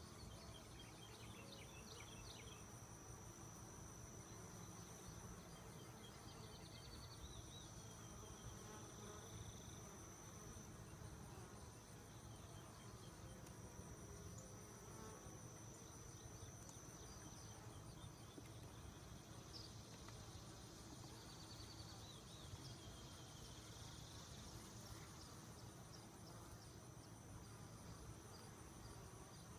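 Faint, steady buzzing of honey bees flying around open hives, with a thin high-pitched whine held over it.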